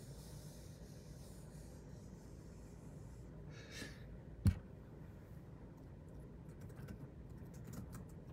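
Faint handling noises over a low steady room hum: a soft hiss and rustle in the first few seconds, one sharp click or knock about four and a half seconds in, then scattered light clicks and taps like typing.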